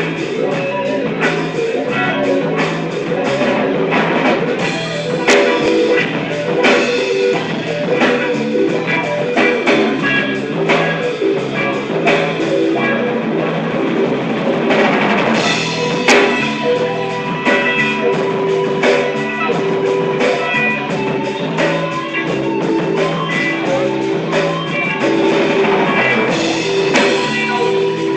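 Rock-style music with guitar and drums playing steadily.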